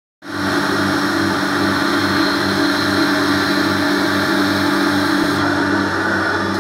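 Hot-water carpet extraction machine running, its vacuum drawing through a steel floor wand as the wand is pushed over a rug. It is a loud, steady hum with a low throb pulsing a few times a second, and it starts just after the beginning.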